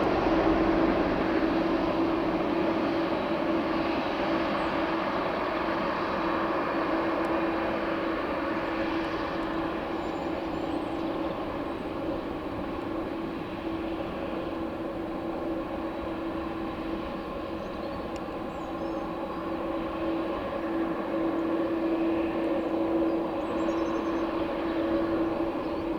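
Boeing 747-400 freighter's four jet engines running steadily, a broad rushing noise with a strong steady drone, easing a little in the middle and growing louder again near the end.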